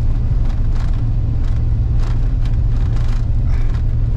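Vehicle driving on a rough unsealed dirt road, heard from inside the cabin: a steady low rumble of tyres and running gear, with short rattles and knocks a few times a second as the car shakes over the rough surface.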